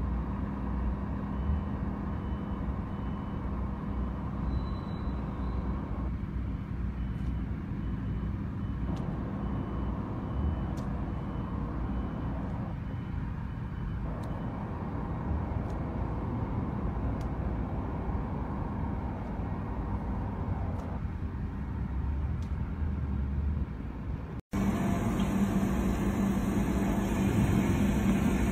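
Steady running of a concrete mixer truck's engine, a low hum and rumble that swells a little every few seconds. About 24 seconds in it cuts off abruptly and resumes louder, with the same hum.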